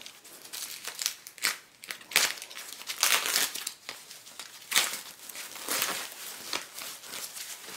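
Plastic bags crinkling and rustling in irregular bursts as they are cut and pulled open with a knife.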